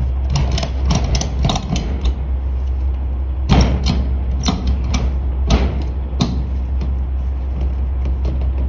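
Metal clicks and knocks from cargo strap hardware being worked to tie down a load in a trailer: a quick run of clicks, then several sharper single knocks. A steady low hum runs underneath.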